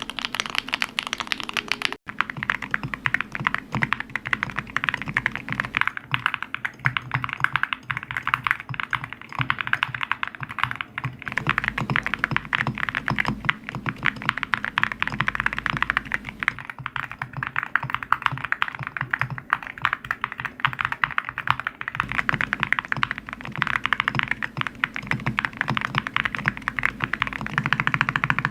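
Fast, continuous typing on a mechanical keyboard: a dense run of key clacks with a brief break about two seconds in.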